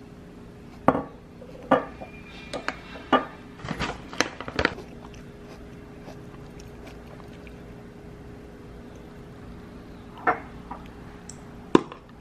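Utensils clinking and knocking on dishes: a quick series of light knocks in the first five seconds and two more near the end, over a steady hum.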